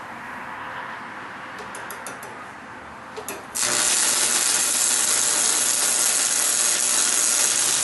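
A few light metal clicks, then a welder striking an arc on steel about three and a half seconds in and running for about four seconds with a loud, steady hiss over a low hum.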